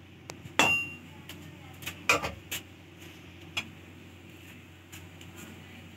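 Metal slotted spoon knocking and clinking against a large metal cooking pot while rice is spread in it: one ringing clang about two-thirds of a second in, then a handful of lighter clinks over the next few seconds.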